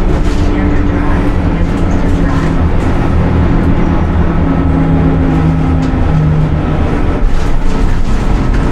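Inside the cabin of a 2018 Nova Bus LFS city bus with a Cummins ISL-G natural-gas engine and ZF EcoLife automatic transmission, running along the road: a steady engine drone over road noise, its note shifting in pitch about midway, with a few light rattles.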